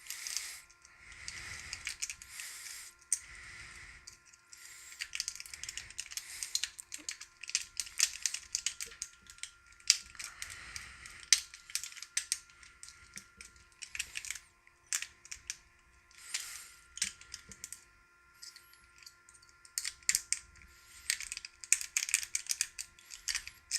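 Worm rake being bounced and zipped in and out of the keyway of a Master Lock M5 padlock, held under tension with a tension wrench: rapid, irregular metallic clicking and scraping of the pins, in bursts of a few seconds.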